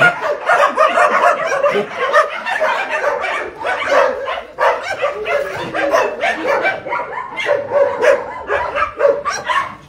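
Many shelter dogs barking at once, a continuous chorus of overlapping barks.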